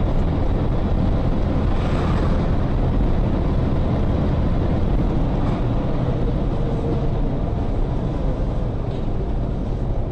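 Steady engine and road noise heard from inside a moving vehicle's cab, a loud continuous low rumble without a clear crash or impact.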